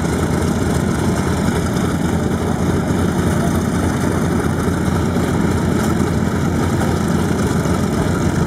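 Grumman F7F Tigercat's Pratt & Whitney R-2800 radial engines idling steadily on the ground after start-up.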